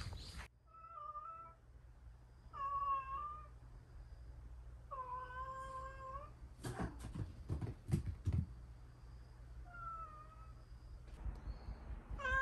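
Young cat meowing four times, drawn-out cries with the third the longest: a lonely cat calling out for company. A few sharp knocks come between the third and fourth meow.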